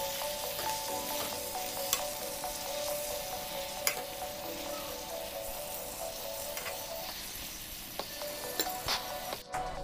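Fresh fenugreek leaves sizzling in a hot pan as a steel spoon stirs and turns them, with a few sharp clicks of the spoon against the pan.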